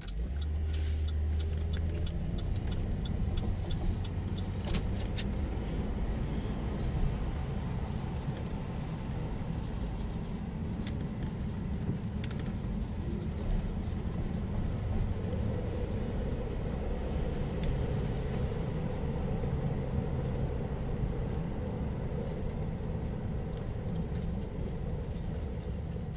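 Car cabin noise while driving: a steady low rumble of engine and tyres on the road, with scattered light rattling clicks.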